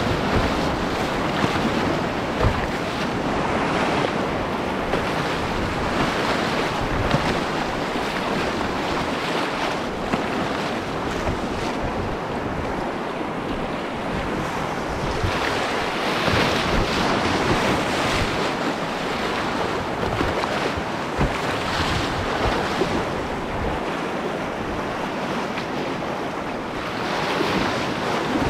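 Whitewater rushing and breaking around a canoe in choppy river waves, with wind buffeting the microphone. A few short low thumps rise above the steady noise.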